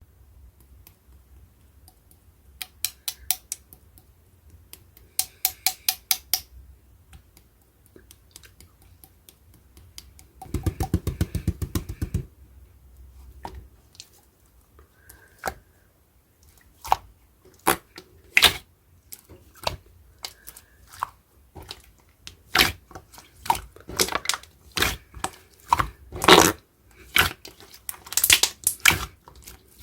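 Slime being squished, pressed and pulled by hand, giving runs of sticky clicks and pops that grow denser in the second half, with a thicker stretch of low squelching about ten seconds in.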